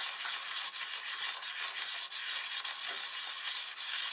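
Round carbide woodturning cutter rubbed by hand over a fluid-wetted diamond sharpening card, a continuous gritty scraping hiss in quick, uneven strokes.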